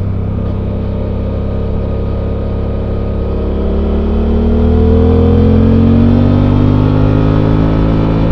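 Suzuki V-Strom 800's 776 cc parallel-twin engine through its stock exhaust, heard on board while riding. It runs steadily, then rises in pitch and gets louder from about halfway through as the bike accelerates.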